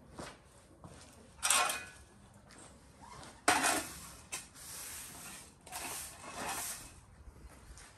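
Straw broom sweeping spilled grain feed across a concrete floor into a metal dustpan: several brushing strokes, the sharpest about three and a half seconds in, with the dustpan scraping and clinking.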